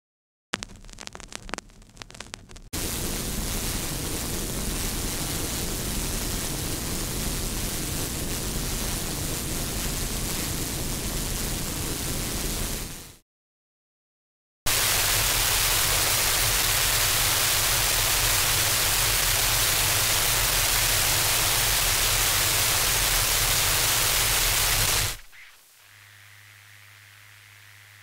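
A run of white-noise tracks. About half a second in there are two seconds of crackly static full of clicks, then an even hiss. About 13 seconds in the sound cuts to silence for a second and a half, then a louder, brighter hiss follows. A few seconds before the end this drops to a quiet low hum with faint hiss.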